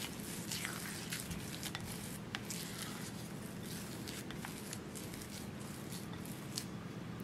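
Silicone spatula folding and pressing thick chocolate cookie dough in a glass bowl: soft squishing with many small sticky clicks and taps, irregularly spaced, over a steady low hum.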